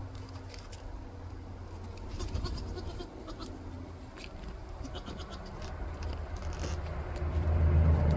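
Goats bleating, over a low rumble and rustling that grows louder near the end.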